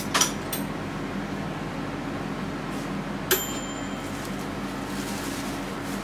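Painting tools being handled: a couple of light knocks near the start and a sharp click with a short high ring a little over three seconds in, over a steady low room hum.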